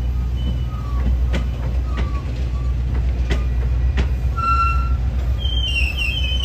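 A train rolling past with a steady low rumble and a few sharp clicks of wheels over rail joints. A high wheel squeal starts near the end.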